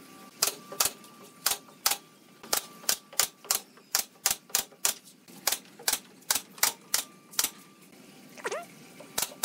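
Nail gun firing nails into pallet-wood boards again and again: sharp shots, roughly two a second, in an uneven rhythm with short pauses.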